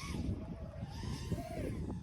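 Brushless motors of a small five-inch FPV quad (Diatone Mamba 2004 2900 kV) whining, the pitch sweeping up and back down with the throttle. Wind buffets the microphone underneath.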